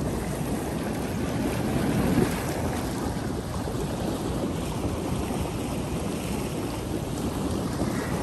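Steady rush and churn of floodwater surging up from an overflowing storm drain in a flooded street, with wind buffeting the microphone.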